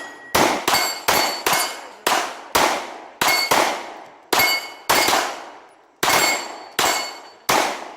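Rapid pistol fire at steel plate targets: about a dozen shots at an uneven pace, each hit followed by the ringing clang of the struck steel plate as it dies away.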